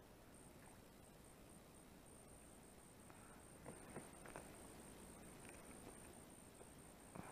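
Near silence on still water, with a faint high, rapidly pulsing whine throughout. A few faint clicks and taps in the middle and one near the end, as a small fish is swung in on the line and handled.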